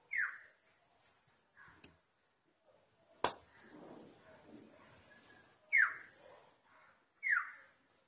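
Three short calls of an oriole, each sliding quickly down in pitch: one at the start and two close together near the end. A single sharp click comes a little before halfway.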